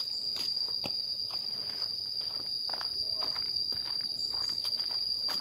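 A steady high-pitched insect drone, one unbroken tone, with scattered footsteps and rustling clicks over it.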